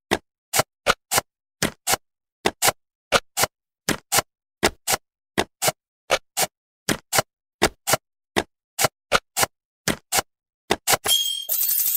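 Cartoon clicking sound effect in a steady tick-tock rhythm, sharp clicks in pairs, as jigsaw pieces slide into place. Near the end a bright chiming jingle starts as the puzzle is completed.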